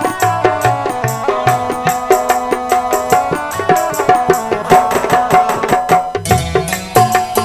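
Instrumental interlude of a nirguni bhajan: a hand drum and other percussion keep a fast, steady rhythm under a sustained melody, without singing.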